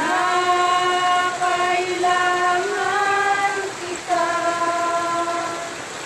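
Slow devotional song sung by female voices in long held notes, sliding up into the first note. The even rush of the river runs underneath.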